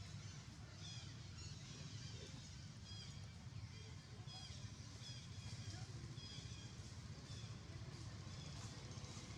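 Faint outdoor ambience: many short, high, falling chirps repeat every half second or so over a low, steady rumble.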